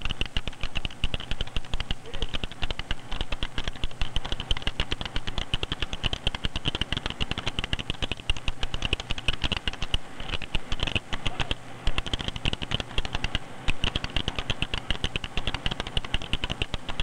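Fast, continuous typing on the keyboard of a 1970s video display terminal used for computerized cold-type typesetting: a dense, unbroken run of key clicks.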